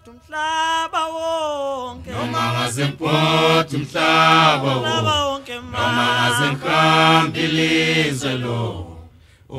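Unaccompanied vocal music: one voice sings held notes, then about two seconds in a choir with deep low voices joins, singing long sustained chords in several phrases that stop shortly before the end.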